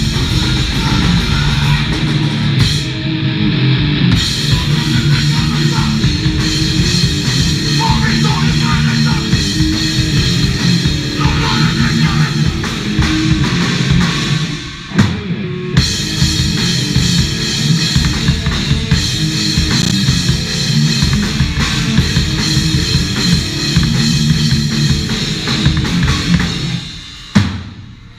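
Rock band playing loud, driving music live on drum kit and electric guitars. The band stops for a moment about halfway through and again near the end before crashing back in.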